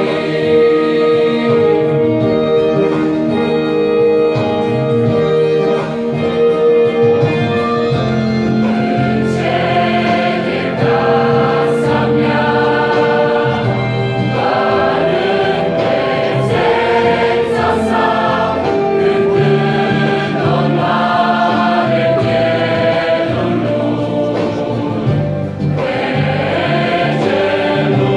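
Mixed choir of women and men singing a Romanian Pentecostal hymn in parts, with long held chords.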